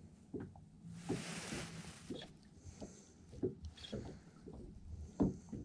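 Small waves knocking and slapping against a boat's hull in uneven low thumps, the sharpest about five seconds in. Gusts of wind hiss on the microphone about a second in and again near four seconds.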